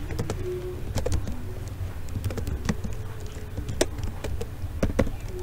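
Computer keyboard being typed on: slow, irregular keystroke clicks over a steady low hum.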